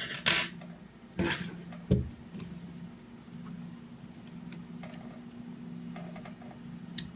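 Small parts handled while fitting a limit switch and its small screws: three sharp clicks and knocks in the first two seconds, then a few faint ticks, over a steady low hum.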